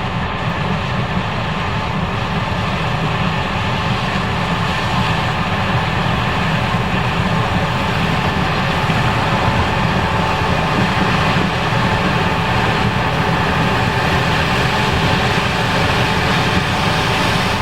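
Case IH 5140 Axial-Flow combine running steadily while harvesting corn: a loud, even machine drone with a few faint steady tones in it.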